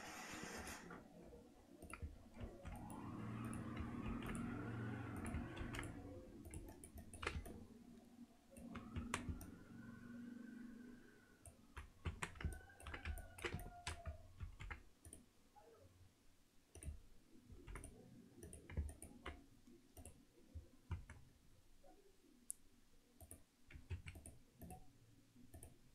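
Scattered computer mouse clicks and keyboard key presses, faint and irregular. A faint low background sound with gliding tones swells for a few seconds about two seconds in, and again briefly around ten seconds.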